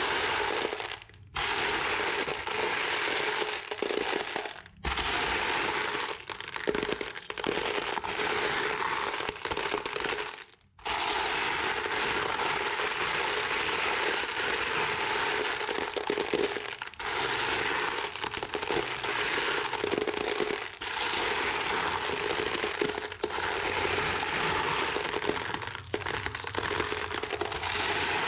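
Glass marbles rolling and clattering down a wooden HABA marble run: a dense, continuous rattle of many small clicks and knocks, broken by a few brief pauses.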